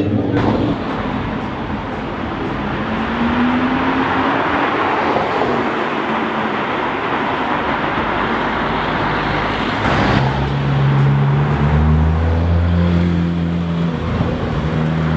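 Supercar engines pulling away through town streets: a Lamborghini Huracán's V10 rising in pitch as it accelerates, then, about ten seconds in, the deep steady note of a Porsche 911 GT3 RS flat-six at low revs.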